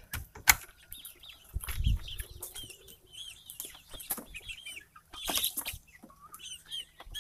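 Flock of young chickens, about ten weeks old, peeping over and over in short high arched calls. A few sharp knocks, a low thump about two seconds in and a short rustling burst about five seconds in break through.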